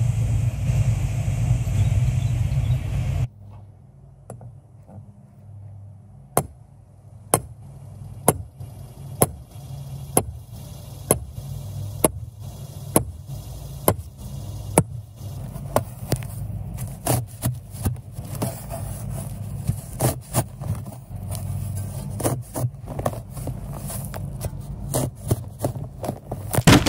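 Sledgehammer striking the top of a ground rod to drive it into the soil: sharp metallic strikes about once a second, coming quicker and less evenly in the second half, over a steady low hum. A loud low rumble fills the first three seconds and then cuts off.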